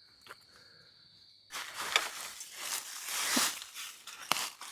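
Footsteps and rustling in dry leaves and brush, uneven crunching with a few sharp clicks. It starts suddenly about one and a half seconds in, after a steady high insect trill.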